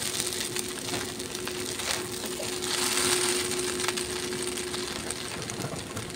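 Boiled chowmein noodles sizzling in hot oil in a wok while a metal spatula stirs and tosses them, scraping and clicking against the pan. The sizzle swells near the start and again about three seconds in as the noodles are turned.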